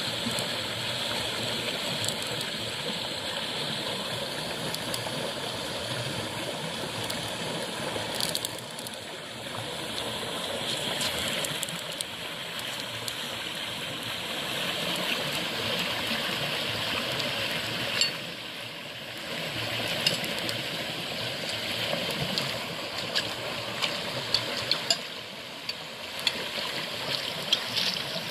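Shallow river rushing over rocks and a small cascade, a steady noise throughout. A few sharp clicks and taps come in the last third.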